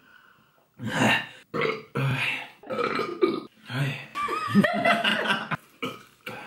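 A person belching loudly, a run of several burps one after another, right after gulping beer.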